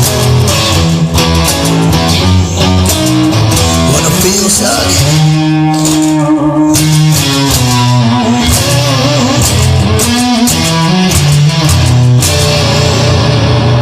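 Music: an instrumental break of a rock song, electric guitar playing over bass, with no singing.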